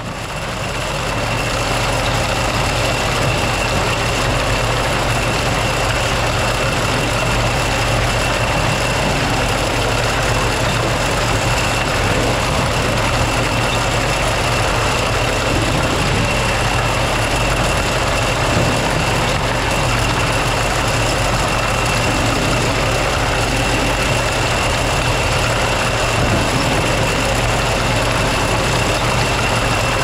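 Engine-driven corn harvest machinery running steadily at constant speed, with a steady high whine over the engine.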